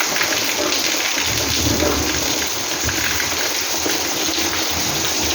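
Heavy rain falling steadily, with a low rumble joining about a second in.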